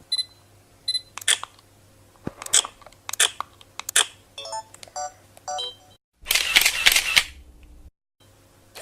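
DSLR camera sounds: short high electronic beeps, sharp single shutter clicks, then a run of quick menu beeps. Near the end comes a dense clatter about a second long from the camera's mechanism.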